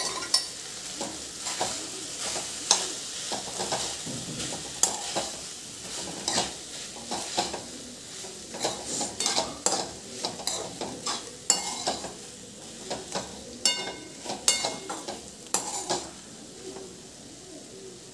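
Metal ladle stirring and tossing fried rice and vegetables in a metal kadai on a gas stove: repeated scrapes and clinks of the ladle against the pan over a light sizzle, a few of the clinks ringing briefly near the end.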